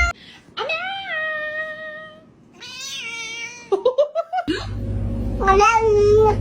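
Cat meowing several times in long, drawn-out meows. A steady low hum comes in about two-thirds of the way through.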